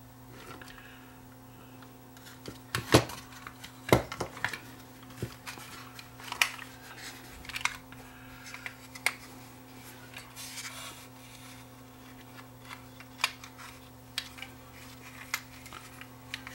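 Plastic radio case halves handled and pressed together, giving scattered sharp clicks and knocks of plastic on plastic, the loudest about three and four seconds in, over a faint steady hum.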